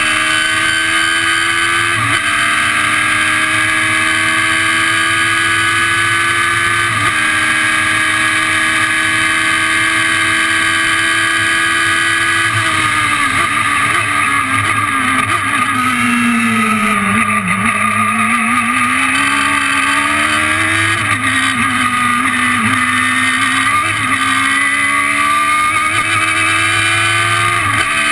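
Radical SR3's motorcycle-derived four-cylinder engine, heard from the open cockpit, revving hard under acceleration with quick upshifts about two and seven seconds in. About halfway through, the revs fall away as the car slows through the gears for a corner. Then it pulls up through the gears again, with two more upshifts.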